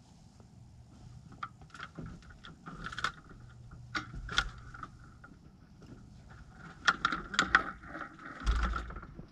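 Scattered clicks, knocks and light rattles from a light aircraft's tail assembly being jostled on grass, with a dull low thump near the end.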